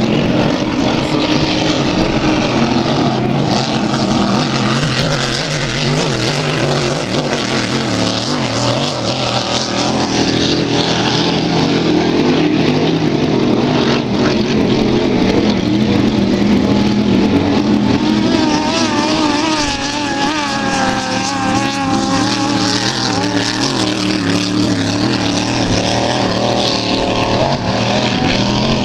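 Racing powerboat engines running hard, a loud continuous drone. For a few seconds past the middle, the engine pitch wavers up and down.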